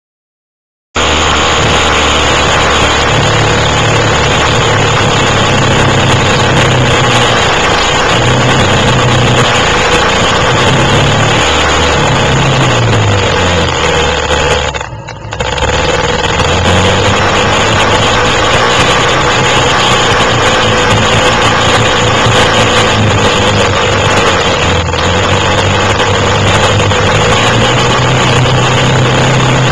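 Quad bike (ATV) engine running under way off-road, its pitch rising and falling with throttle and gear changes, over a steady rushing noise. It starts suddenly about a second in and drops out briefly about halfway through.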